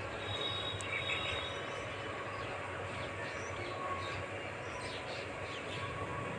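Wet onion-tomato masala sizzling in a steel kadhai over a gas burner: a steady hiss with faint pops.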